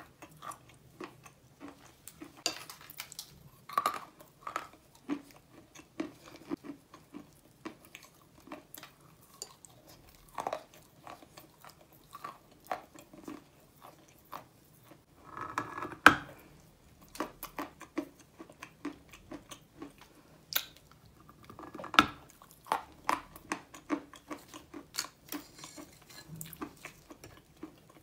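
A lump of chalk being bitten and chewed close to the microphone: a steady run of dry crunches and crackles, with two louder snaps about sixteen and twenty-two seconds in.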